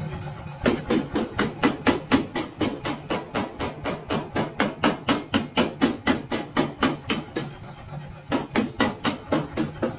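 A power hammer's ram striking a red-hot piece of spring steel on the anvil in a rapid, even run of blows, about four a second, over a steady low hum. There is a short pause in the blows near the end, then a few more.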